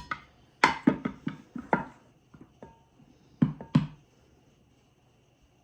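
Kitchen utensils knocking against a bowl as flour is measured out by the cupful for a crumb topping: a quick run of sharp knocks in the first two seconds, then two more loud knocks about three and a half seconds in.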